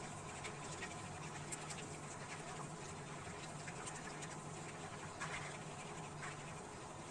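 Wooden spoon stirring semolina into simmering sugar syrup in a non-stick wok, faintly scraping against the pan, with small scattered clicks over a low steady hum.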